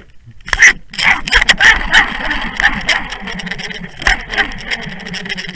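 Heard through an underwater camera housing on a fishing line: rapid clicking, knocking and rattling as a hooked skrei cod twists on the jig beside it. After about three seconds this settles into a steady rushing noise with a low hum underneath, still broken by a few sharp knocks.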